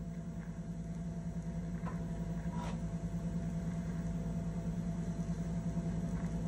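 Steady low electrical hum from a vintage filmstrip-and-tape training player in a pause of its soundtrack, with a couple of faint ticks.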